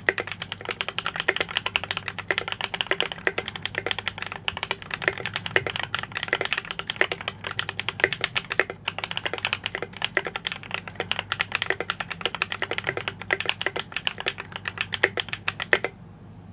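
Fast typing on a mechanical keyboard with lubed Holy Panda tactile switches and PBT double-shot keycaps: a dense, steady stream of key clacks that stops suddenly about a second before the end.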